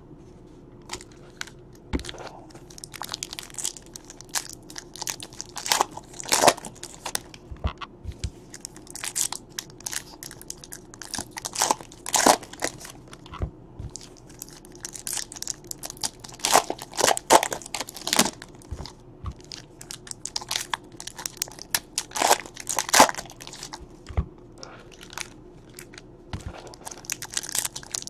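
Baseball card packs' wrappers crinkling and tearing as packs are ripped open and handled, mixed with cards being shuffled and set down in stacks; an irregular run of sharp crackles and snaps.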